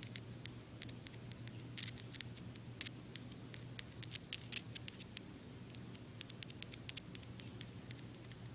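Piezoelectric disc from a smoke detector giving faint, irregular clicks and crackles while it is being tested, sounding a little quiet, over a low steady hum.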